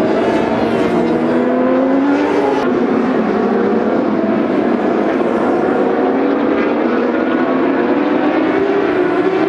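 Racing superbike engines at high revs as several bikes pass on track, their overlapping pitches rising and falling through throttle and gear changes.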